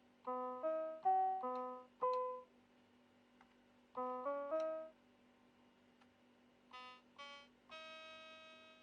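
Casio PT-30 mini keyboard playing short phrases of quick notes that die away, twice. Near the end a brighter, held voice plays a few sustained notes. A faint steady hum runs underneath.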